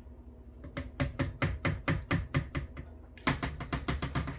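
Quick light clicks and taps, about six a second, in two runs with a short pause in between: a wire whisk tapping against a plastic pitcher as the lye solution is poured out into the soap batter.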